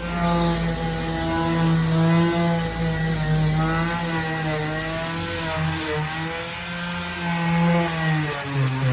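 Electric power tool running steadily while wood is worked, a droning hum that wavers slightly in pitch and drops lower near the end.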